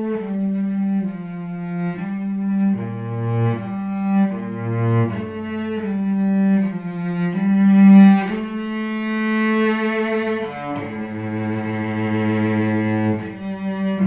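Solo cello played with the bow: a slow line of held notes, changing about once a second, with a longer held low note in the last few seconds.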